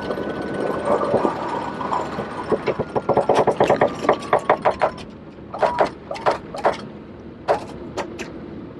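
Sailboat winch clicking as the mainsail halyard is cranked in: a rapid run of ratchet clicks a few seconds in, then slower single clicks as the sail goes up, over a steady background rumble.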